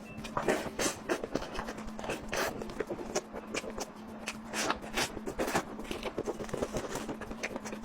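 Close-miked eating sounds: irregular wet clicks, crunches and mouth noises of chewing, over a faint steady hum.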